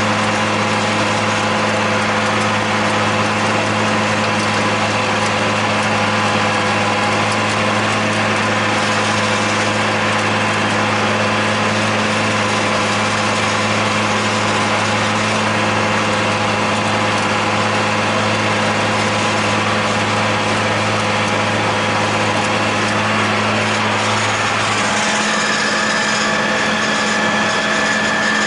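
John Deere 8100 tractor's six-cylinder diesel running steadily under load, driving a John Deere 946 rotary disc mower-conditioner that is cutting hay. About 25 seconds in, the low hum falls away and a high, steady whine comes up.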